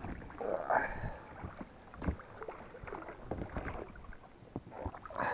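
Aluminium oars rowing an inflatable boat: blades splashing and swishing through the water, with scattered short knocks.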